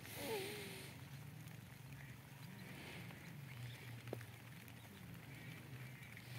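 A faint, short, wavering bird call about a third of a second in, over a low steady background sound.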